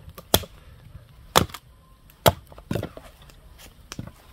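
Firewood being split by batoning a knife: a baton striking the knife's spine gives three loud, sharp knocks about a second apart, followed by a few lighter knocks.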